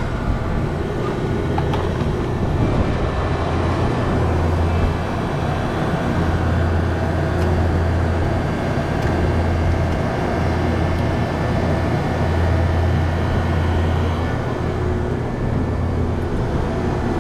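Freezer evaporator fan motors, newly replaced, running steadily just after the power is switched back on, with a strong steady low hum.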